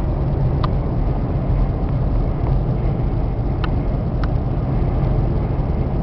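Steady low rumble of road and engine noise inside the cabin of a 2004 Hummer H2 cruising at about 65 mph on oversized tyres, nice and quiet in here for that speed. A few faint ticks sound over it.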